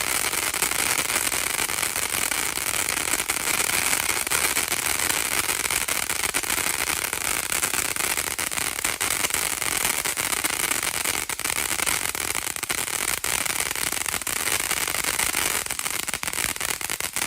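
TNT Wild Side ground fountain firework giving off a steady, dense crackle that dies out quickly near the end as the fountain burns out.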